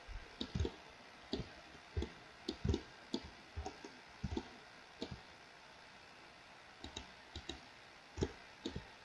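Soft, irregular clicking of a computer mouse and keyboard: about twenty separate clicks, with a pause of about a second and a half a little past the middle.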